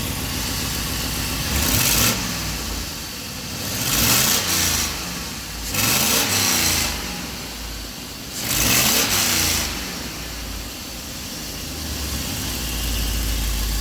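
2003 Chevy 3500's gasoline V8 idling and revved up four times, each rev rising and falling back to idle, after an unplugged fuel injector connector that had set an open injector circuit code and a misfire was reconnected.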